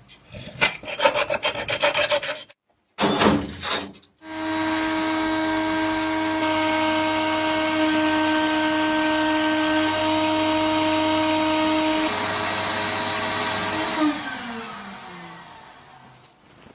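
Rasping, saw-like strokes on wood for about four seconds, broken by a short pause. Then a small motor-driven tool runs steadily for about ten seconds and winds down, its pitch falling.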